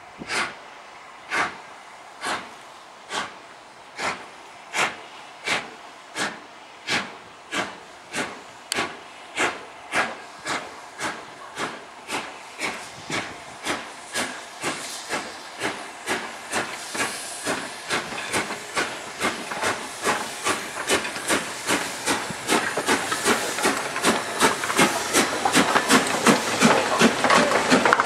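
LMS Stainer 'Black 5' 4-6-0 two-cylinder steam locomotive starting away with a train: sharp chuffs of exhaust that start about one a second and quicken steadily as it gathers speed, growing louder as it draws near and passes.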